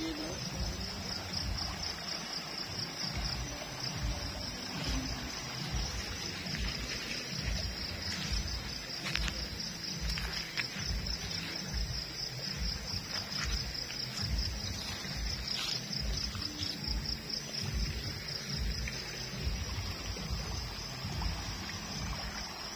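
Night insects chirring steadily in a fast pulsing trill, over the running water of a shallow river. A choppy low rumble runs underneath, with a few faint clicks in the middle.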